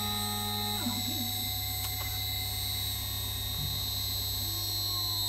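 Water-cooled CNC spindle turning at about 4,200 RPM under VFD control: a steady high whine over a low hum. Stepper motors briefly whir as the spindle head moves, with a short steady tone near the end.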